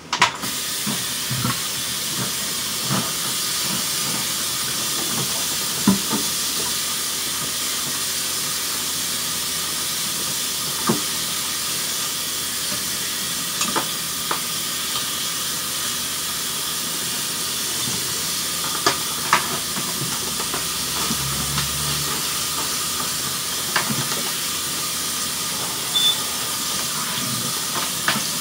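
Kitchen tap running steadily into the sink, switched on right at the start, with scattered light clinks and knocks of things being handled in the sink.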